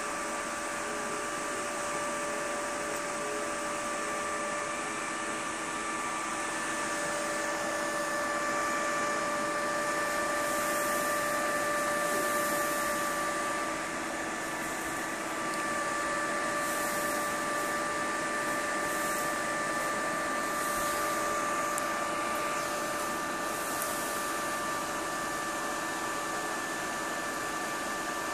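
Cooling fans on a liquid-nitrogen-cooled PC test bench running steadily under benchmark load, a whirring hiss with a constant high whine.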